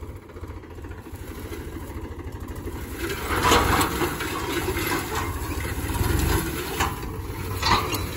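Mahindra Yuvo Tech Plus tractor's diesel engine running under load while pulling a disc harrow, growing louder over the first few seconds. Short bursts of clatter and scraping from the harrow discs cutting through the clods, the loudest about three and a half seconds in and another near the end.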